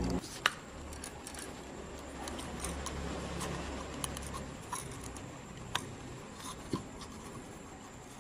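Small flat-blade tester screwdriver prying and scraping at the edge of an LED bulb's circuit board, where it sits in a silicone-sealed plastic housing, giving faint scratching and a few sharp clicks as the board is levered loose.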